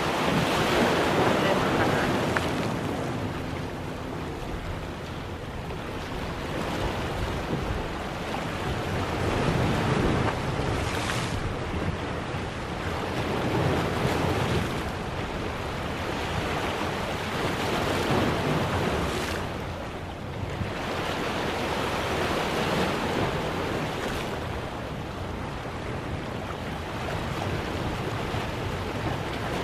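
Sea waves breaking and washing over rock boulders along the shore, surging and falling back every few seconds, with wind on the microphone.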